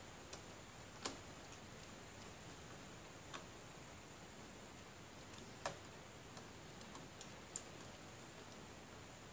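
Faint, scattered clicks and taps of a screwdriver and small metal parts as screws are fitted into the guide plate of a copier fuser unit, about eight in all, the loudest about a second in and just past the middle, over faint room hiss.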